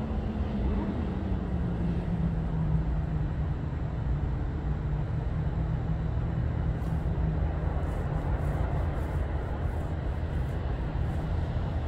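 Diesel locomotive running with a steady low drone.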